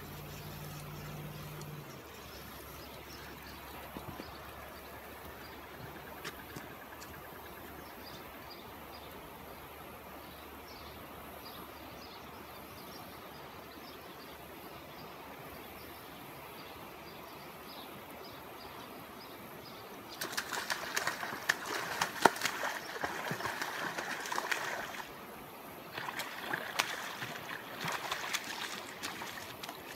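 Quiet riverside background, then, starting about two-thirds of the way through, two spells of splashing and rattling a few seconds each as a small hooked channel catfish is brought in.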